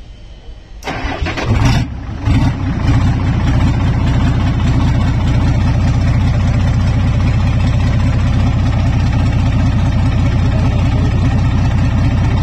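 Freshly rebuilt Hino six-cylinder diesel truck engine cranked on the starter and firing up about two seconds in, then running steadily.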